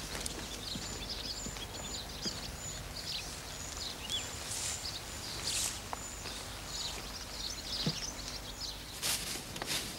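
Small birds chirping and calling, with many short high chirps and a thin high note repeated in short dashes, over a steady low outdoor hum. A few brief noisy scuffs come about halfway through and again near the end.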